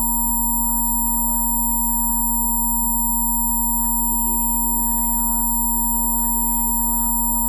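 Rife-frequency tones: several steady pure tones sounding together, from very low to very high, held unchanging over a soft ambient music pad.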